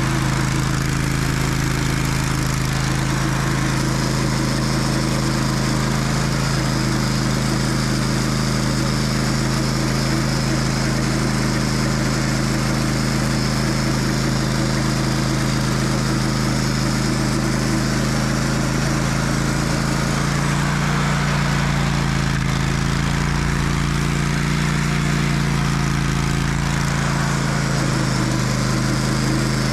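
Portable band sawmill's engine running steadily under load as the blade cuts through a large oak log, the engine note shifting slightly about two-thirds of the way through.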